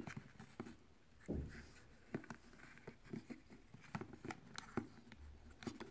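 Scattered light clicks and taps of hand blender parts being handled and fitted together during reassembly, with a duller knock about a second and a half in.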